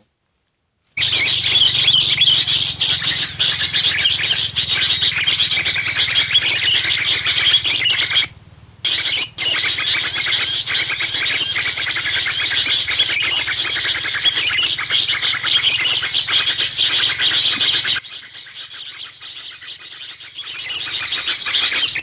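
Dense, continuous chirping and twittering of many small birds over a steady low hum, as from a bird-lure call played through a small speaker to draw birds to lime sticks. It starts abruptly about a second in, cuts out briefly near the middle, and drops much quieter near the end.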